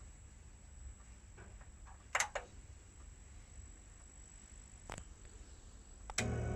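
A quiet gap in the receiver's radio playback: a faint steady hum and hiss with a few soft clicks about two seconds in and again near five seconds. Music comes back in near the end.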